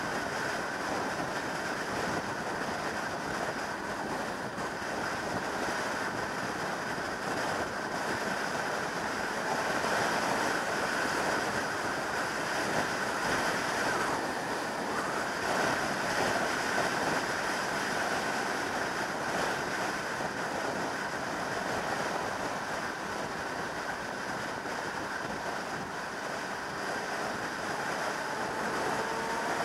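Steady rush of wind over the microphone at motorway speed on a 2003 Yamaha YZF600R Thundercat, with the bike's inline-four running under it. Near the end a faint rising tone comes in.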